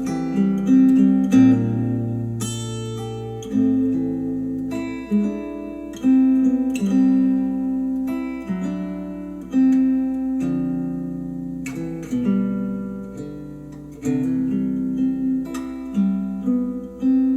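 Instrumental acoustic guitar music played back through an Adam Audio A5X powered studio monitor: plucked chords ringing out, with a new chord struck every second or two.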